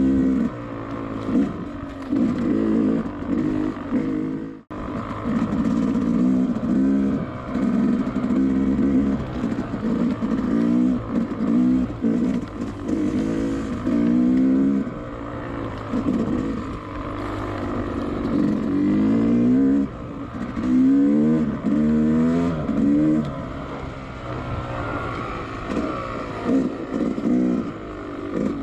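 Two-stroke dirt bike engine being ridden hard, its pitch climbing again and again as the throttle opens and falling back as it closes. The sound drops out for an instant a little under five seconds in.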